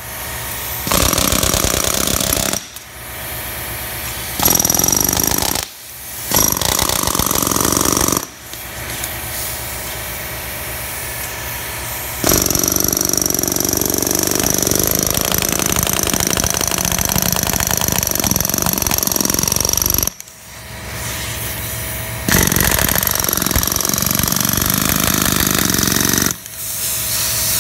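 Pneumatic air hammer with a chisel bit chattering against a pipe form set in a concrete floor, splitting the pipe. It runs in bursts of a few seconds with brief pauses between, some stretches quieter than others.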